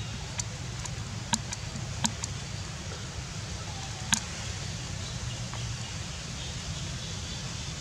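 Steady low outdoor rumble with a few sharp clicks, four of them spread through the first half.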